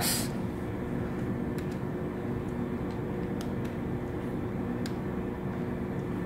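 A few faint key clicks from a Casio scientific calculator being typed on, over a steady background hum.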